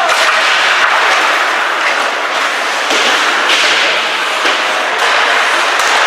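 Ice hockey play: a steady hiss of skates scraping the ice, broken by several sharp cracks of sticks and puck striking.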